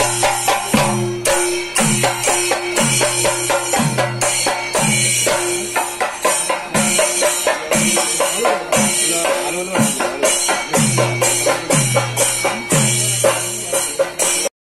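Traditional percussion music: a low drum struck about once a second, each stroke falling in pitch, over a steady held drone and a quick, bright metallic beat.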